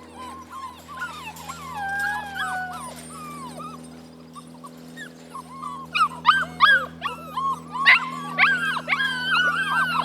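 Six-week-old Alaskan Malamute puppies howling: high, wavering howls, a few held longer in the first seconds, then from about six seconds in a louder chorus of many short rising-and-falling yips and howls.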